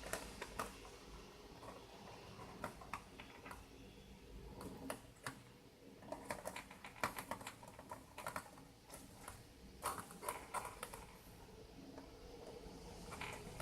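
Irregular light clicks and taps of small plastic parts being handled and fitted, as a circuit board is pressed onto its plastic standoffs and connectors are plugged in, thickest in the middle of the stretch.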